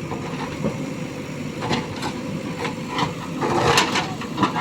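JCB 3DX backhoe loader's diesel engine running steadily, with scattered knocks and a louder clatter about three and a half seconds in.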